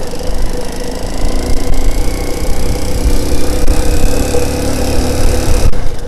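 Motorcycle engine running at a steady note while the bike rides along a dirt track, with a heavy low rumble.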